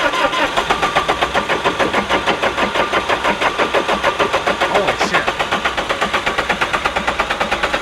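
Starter cranking the cold engine of an old hydraulic work machine: an even, rhythmic chug of about eight pulses a second without the engine catching. It is typical of a machine that is slow to start when cold.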